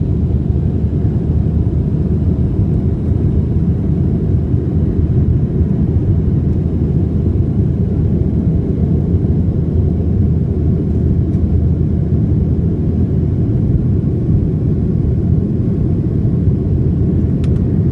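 Steady low rumble of a jet airliner's engines and rushing airflow, heard inside the passenger cabin during the climb after takeoff.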